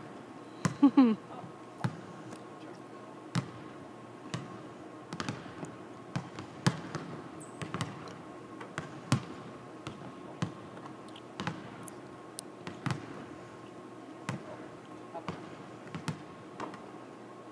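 A basketball bouncing and being shot in an empty arena: irregular sharp thuds of the ball on the hardwood court and off the rim and backboard, echoing around the hall. There is a short pitched squeak about a second in.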